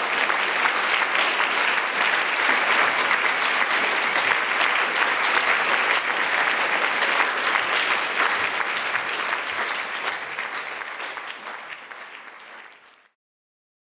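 Audience applauding, a dense, even clapping that fades over the last few seconds and stops abruptly near the end.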